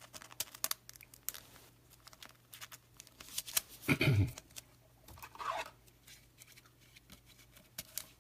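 Trading card being slid into a plastic penny sleeve and then into a rigid top loader: soft plastic rustles and small clicks and scrapes throughout, with a brief low vocal sound about four seconds in.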